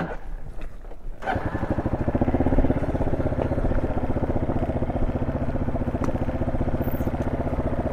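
Single-cylinder engine of a Honda SL230 trail bike fitted with an aftermarket muffler. It comes in about a second in and then runs steadily at low speed with even firing pulses.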